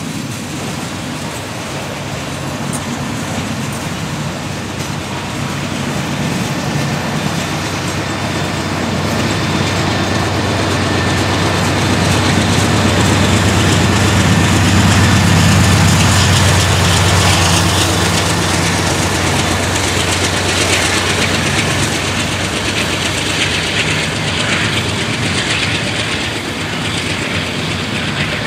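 Freight train of covered hopper cars rolling past, its wheels clattering steadily over the rails. About halfway through a mid-train diesel locomotive passes, and its engine drone swells and then fades.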